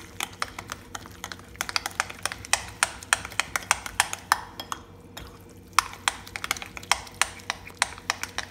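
Steel spoon stirring a thick curd-and-semolina batter in a glass bowl, clicking and tapping against the glass several times a second, with a short pause about halfway through.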